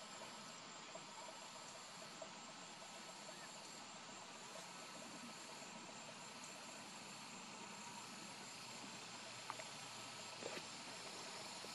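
Faint, steady outdoor ambience of insects chirring over a background hiss, with a couple of faint clicks near the end.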